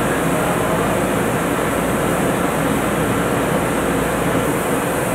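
Steady drilling-rig machinery noise on the drill floor: an even rush with a low hum underneath, unchanging throughout.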